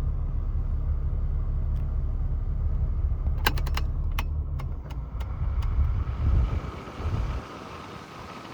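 Mercedes SLK32 AMG's supercharged V6 idling steadily, with a quick run of sharp clicks about three and a half seconds in. Then the air-conditioning blower's airy hiss builds and keeps going, while the low engine hum turns uneven and drops away near the end.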